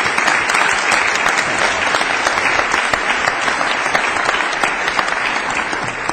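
A large audience applauding steadily, with dense overlapping hand claps that begin to die away near the end.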